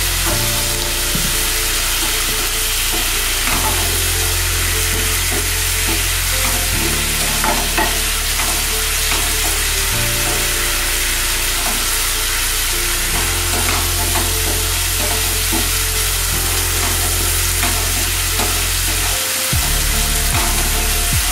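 Wooden spatula stirring and scraping a thick spice-and-tomato masala around a non-stick kadai, the oil sizzling steadily. The masala is being fried down until the oil separates.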